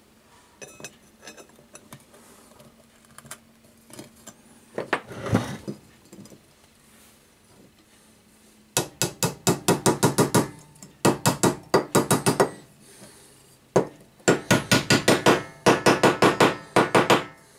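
A small hammer tapping rapidly on metal, in three bursts of quick, evenly spaced strikes, after a few scattered knocks of parts being handled. This fits driving a copper end plate into a small boiler shell before it is soldered.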